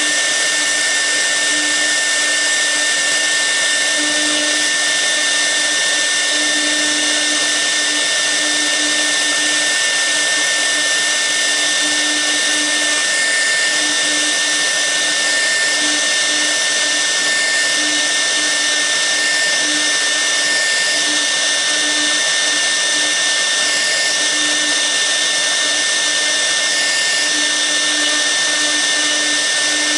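Air-cooled 6 kW spindle of a CNC router running steadily with a high whine while a V-bit carves into the workpiece. A lower hum comes and goes.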